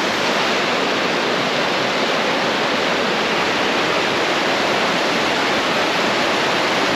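Rushing mountain brook in spate, swollen with snowmelt and rain, making a steady, even roar of fast, high water.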